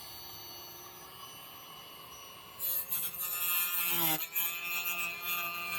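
Dremel rotary tool with a cutting blade running at high speed with a steady whine, then biting into plexiglass about two and a half seconds in with a louder, harsher cutting noise; the motor's pitch sags briefly under load about four seconds in.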